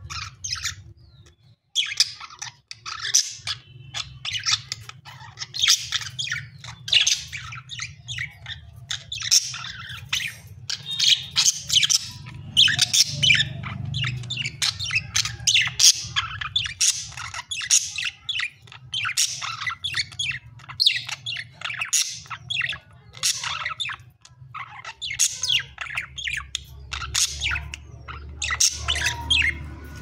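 Pet budgerigars chirping and chattering, a near-continuous stream of short, quick, high calls and squawks, with a short break about a second in.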